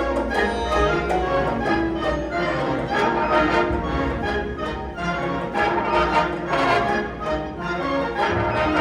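Wind band playing live music, brass and woodwinds with a regular beat of note attacks.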